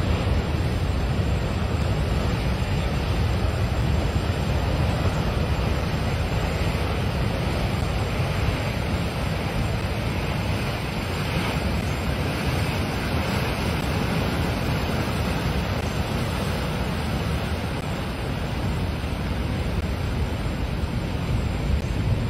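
Heavy storm surf crashing and churning against rocky cliffs, a steady roar of breaking waves and foaming water, with wind rumbling on the microphone.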